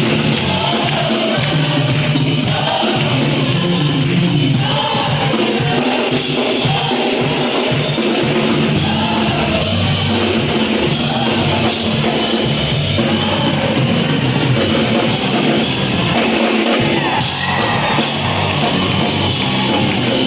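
A high school gospel choir singing praise music over instrumental accompaniment with jingling tambourine-like percussion, loud and continuous.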